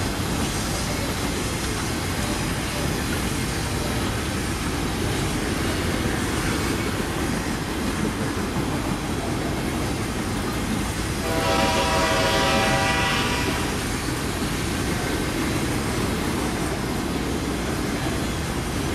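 Freight train rolling by, its cars giving a steady rumble. A single locomotive horn blast of about two and a half seconds sounds a little past the middle.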